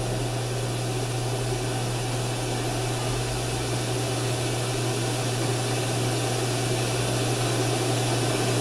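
Steady low hum under an even hiss, holding level throughout with no distinct events.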